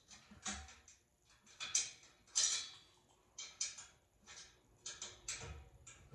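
Irregular metallic clicks and scrapes, one or two a second, of a screw being turned loose from a bed frame with a hand tool.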